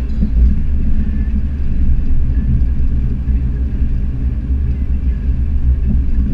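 A car's engine and road noise heard from inside the cabin while driving at a steady pace: an even low rumble with no revving rises or gear changes.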